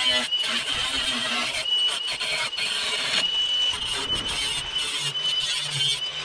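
Ridgid cordless angle grinder grinding the cut edges of a thin steel sheet-metal panel: a steady high motor whine with a harsh grinding hiss. The grinding breaks off briefly several times while the whine carries on.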